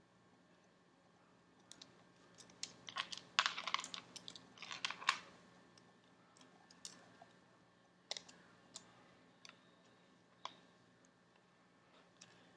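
Fingertips and fingernails working at the small parts inside an opened Samsung Galaxy S4: a run of light clicks and crackles for a few seconds, then single clicks every second or so.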